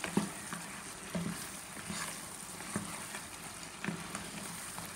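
Okra stew with palm oil, crab and dried fish sizzling in a pot while a wooden spoon stirs it, with a few sharp knocks of the spoon against the pot.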